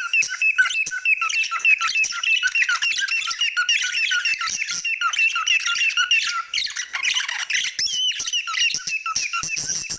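Cockatiels chirping in a fast, continuous chatter of short repeated calls, about four or five a second, with a harsher, rougher call about seven seconds in.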